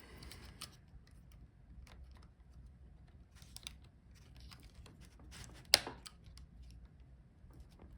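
Faint clicks and light scrapes of hands and a tool working at a laptop's Wi-Fi card as it is pushed to slide out of its slot, with one sharp click a little before six seconds in.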